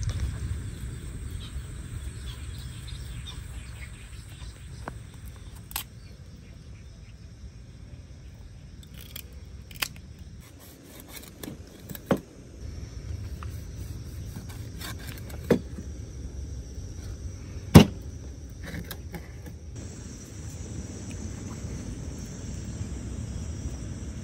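Outdoor ambience with a low wind rumble and a steady insect drone. Several sharp knocks, spread apart, the loudest about three quarters of the way through: a cleaver chopping a milkfish into steaks on a wooden cutting board.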